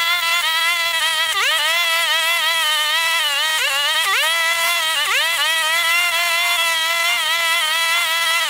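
Maruyama MBS420RS 43 cc two-stroke backpack brush cutter running at high revs, its pitch dipping sharply and recovering a few times as the cutting head bites into grass.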